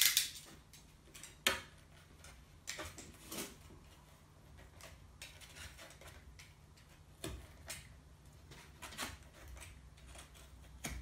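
Hand-trimming the cut edges of a hole in an IKEA Lack table's hardboard top to square them off: scattered short scrapes and knocks at irregular intervals.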